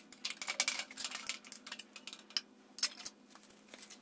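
Metal paint can lid being pried off with a wooden stir stick: a run of small metallic clicks and scrapes, loudest about half a second in and again near three seconds in.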